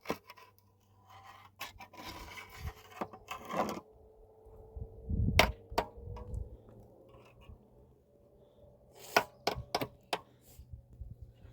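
Irregular rubbing and scraping with a few sharp knocks: things being handled by hand.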